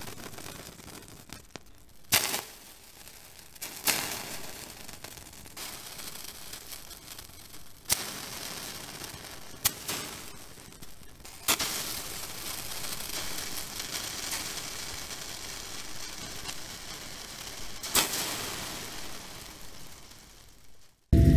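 Water drops from hanging medical infusion sets striking hot steel sheets, each landing with a sharp snap and a fading sizzle, about six times, over a steady hiss and crackle. A louder steady mechanical hum cuts in right at the end.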